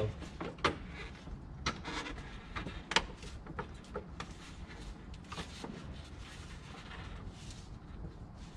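Scattered light clicks and knocks of hoses and fittings being handled and pushed into place under the car, with a sharper click about three seconds in, over a low steady background rumble.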